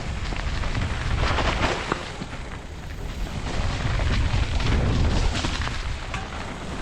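Commencal Meta AM mountain bike riding a dirt trail, heard on a GoPro: heavy wind rumble on the microphone mixed with tyre noise and clicks and rattles from the bike. It gets louder about a second in and again about four seconds in.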